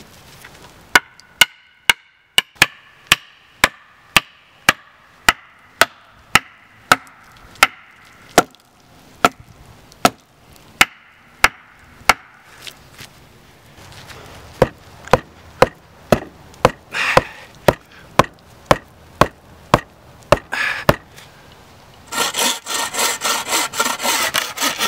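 Sharp knocks, about two a second, of a wooden stake being pounded into hard ground, with a short break in the middle. Near the end a hand saw cuts through a log in quick strokes.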